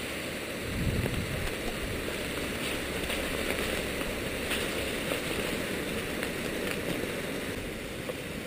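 Steady rain falling on a wet road: an even hiss with scattered drop ticks.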